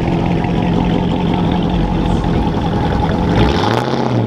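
Widebody Dodge Challenger's exhaust running at low revs as the car rolls away. About three and a half seconds in, the engine note drops lower and then rises briefly.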